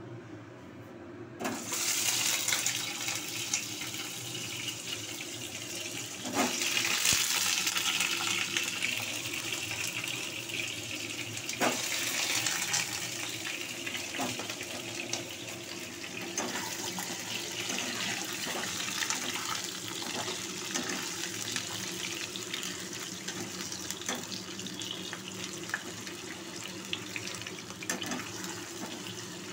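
Raw potato chunks going into hot oil in a kadai: the oil starts to sizzle sharply about a second and a half in. A few clicks come as pieces land, and the sizzle then carries on steadily.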